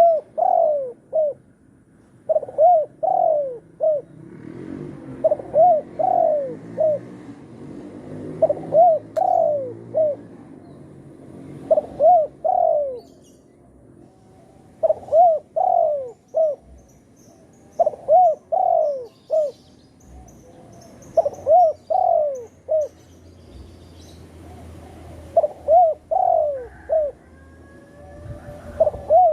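Spotted dove cooing: short phrases of three or four quick coos, repeated about every three seconds.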